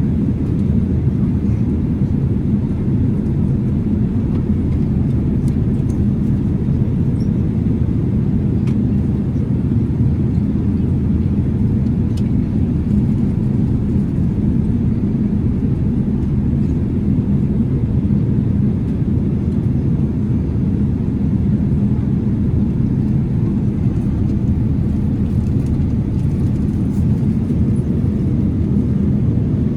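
Steady low drone of a Boeing 787-8 Dreamliner's engines and airflow heard inside the cabin in flight.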